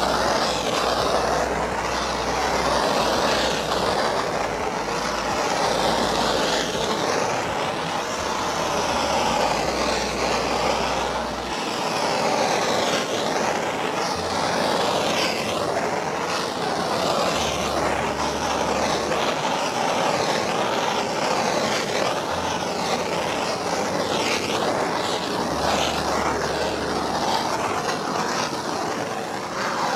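Handheld gas torch burning with a steady rushing hiss, its flame swept back and forth over freshly poured epoxy resin to draw out and pop air bubbles. The sound swells and fades a little as the flame moves.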